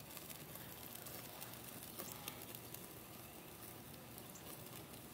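Faint sizzling and crackling of salmon cooking over the open flame of a small charcoal grill, a steady hiss with a few small ticks.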